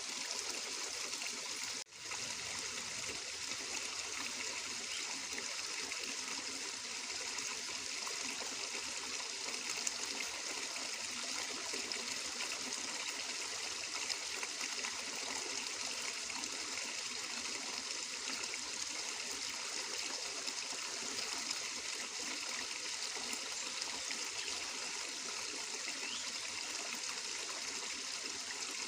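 Water flowing steadily, an even rushing trickle with no change in pace. It cuts out for an instant about two seconds in.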